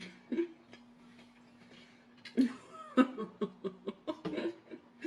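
Close-up eating sounds: wet mouth clicks and smacks of a woman chewing cheesecake, with a cluster of brief wordless voice sounds, like a soft chuckle, between about two and a half and four and a half seconds in. A steady low hum runs underneath.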